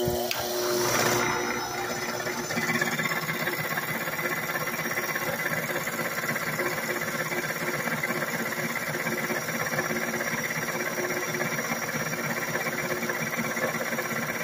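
Electric grinder and drill press running steadily, the grinding wheel working against a Greenteeth stump grinder tooth turning in the drill press chuck: a constant motor hum under an even grinding hiss.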